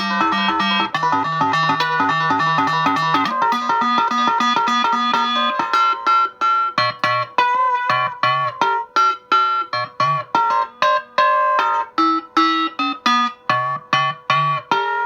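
Electric guitar, a Fender Stratocaster through a DOD Gonkulator ring modulator and a Roland JC-20 amp, played in a chicken-picking style: quick repeated ringing notes for the first five or six seconds, then short, clipped single notes with gaps between them. A steady tone is held underneath throughout.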